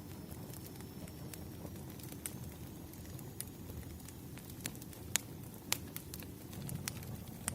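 Wood fire burning: a steady low rumble of flames with scattered sharp crackles and pops, two of them louder in the second half.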